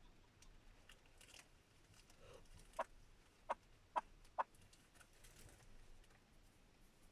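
Chukar partridge giving four short, sharp clucks a few seconds in, the last three in quick succession.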